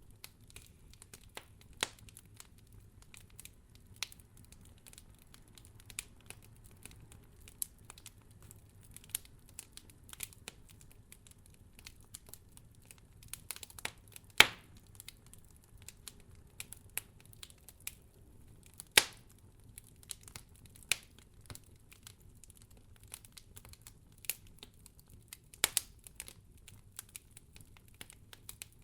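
Wood fire crackling: irregular small crackles with a few loud pops, the loudest about halfway through, over a faint low rumble.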